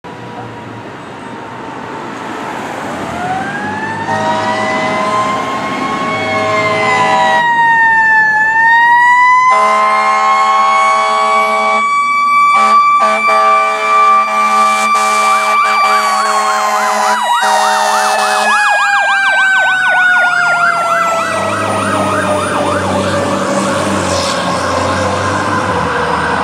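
Pierce Lance fire engine running code: a mechanical Q siren winds up, dips briefly and coasts slowly down, with air horn blasts over it. An electronic yelp siren warbles fast from about two-thirds of the way in. It grows louder as the engine approaches.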